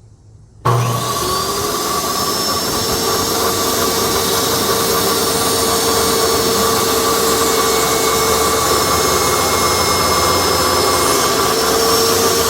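Table saw motor switched on about a second in, spinning up with a rising whine and then running steadily at full speed.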